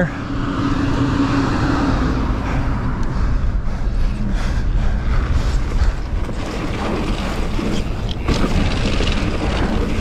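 Wind rushing over the microphone and tyres rolling over a dirt trail as a 2021 Pivot Switchblade mountain bike is ridden fast, with scattered clatters from the bike going over bumps.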